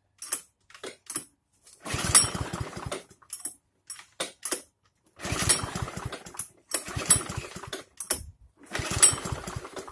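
Einhell petrol lawn mower's four-stroke engine being pull-started with its recoil cord, about four pulls in a row, each a second or so of the engine turning over in quick pulses without catching. The mower has grown hard to start.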